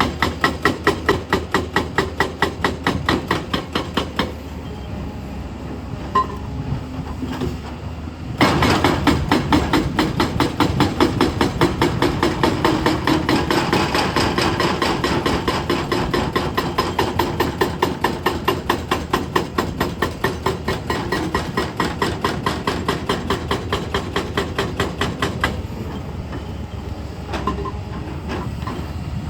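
Excavator-mounted hydraulic breaker hammering in rapid, even blows, with the machine's diesel engine running underneath. The hammering stops twice, about four seconds in and again near the end, leaving the engine running, then starts again.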